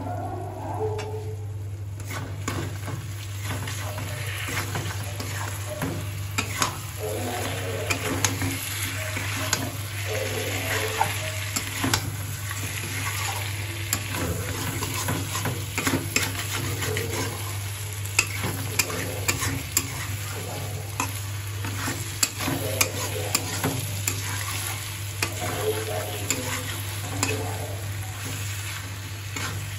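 Chicken pieces sizzling as they fry in oil and masala in a metal kadai, stirred with a flat metal spatula that scrapes and knocks against the pan many times. A steady low hum runs underneath.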